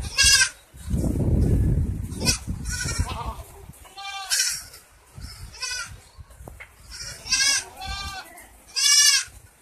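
Goats bleating, several separate calls a second or two apart. A low rumbling noise sits between the first two calls, about a second in.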